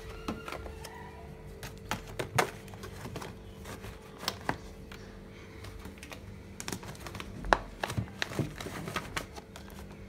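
Plastic food containers clacking and knocking against glass fridge shelves as they are put back, in irregular sharp clicks with a steady low hum beneath.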